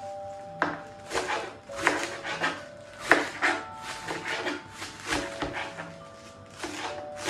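Knife shredding a head of fresh cabbage on a cutting board, crisp cuts coming irregularly about twice a second.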